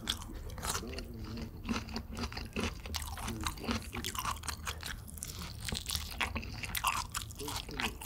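Close-miked biting and chewing of crispy fried chicken: dense, irregular crisp crunches, several a second.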